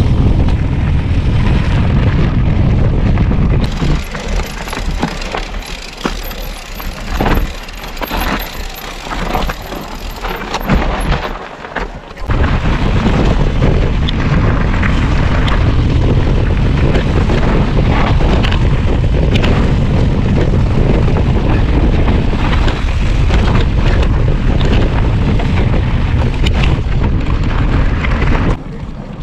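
Mountain bike ridden along a stony dirt trail, heard through heavy wind buffeting on the camera's microphone, with the crunch and rattle of tyres and frame over gravel. Between about four and twelve seconds in, the wind rumble drops and a run of sharp clicks and knocks from the bike over the stones comes through clearly.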